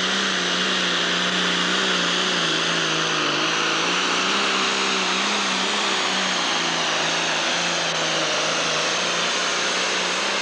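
John Deere 5010 pro stock pulling tractor's diesel engine running flat out under load as it drags the weight-transfer sled, a loud steady engine note with a high whine and hiss over it. The pitch wavers and sags a little in the second half as the engine is pulled down by the sled.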